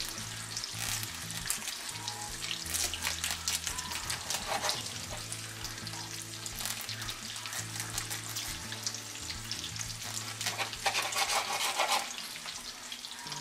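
Bacon frying in a pan: a steady sizzle with many small crackles and pops.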